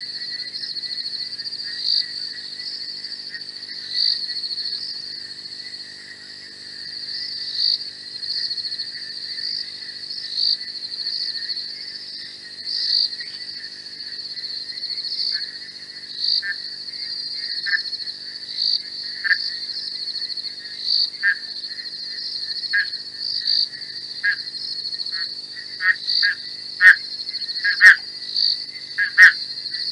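Night chorus at a waterhole: insects keep up a steady high-pitched trill while frogs give short calls, every couple of seconds at first and then faster and louder over the last ten seconds.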